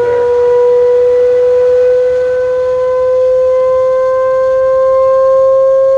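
A sine-wave test tone from a loudspeaker driving a propane flame table: one loud, steady tone that glides very slowly upward in pitch. It is part of a sweep from about 110 to 900 Hz, run to find the table's resonant modes.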